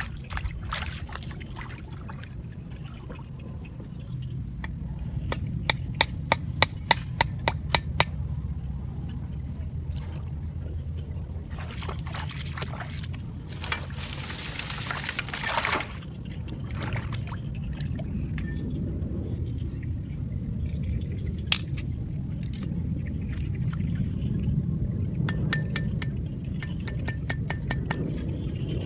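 Water trickling and sloshing over a steady low rumble, with runs of sharp clicks and taps and a short rushing splash about halfway.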